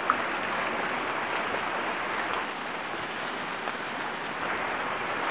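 Steady rush of river water flowing, with a single sharp tick just after the start.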